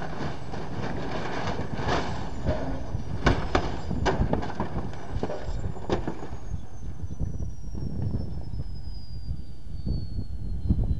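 Boeing CH-47 Chinook helicopter destroying itself in ground resonance: a steady din of engines and rotors, broken by several loud crashes and bangs as the rotor blades and airframe break apart. After that a high whine falls steadily in pitch under a lower rumble, with a few more crashes near the end.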